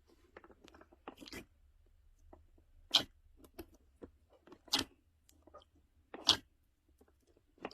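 Close-up crunching of someone biting into something hard and crunchy: four sharp crunches about a second and a half apart, with fainter crackling chews between them.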